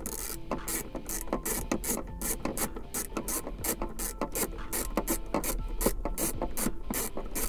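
Ratchet wrench clicking steadily, about three to four clicks a second, as it unscrews a 10 mm self-locking hex nut.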